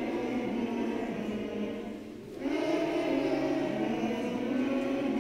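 A group of children singing a song together, two sung phrases with a short breath between them about two seconds in.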